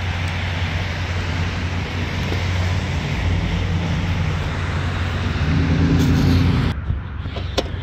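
Steady low motor hum with outdoor noise, a higher component rising and growing louder a few seconds in. About two-thirds through, the upper sound drops away and turns muffled as the microphone is pressed against clothing, with a click or two of handling.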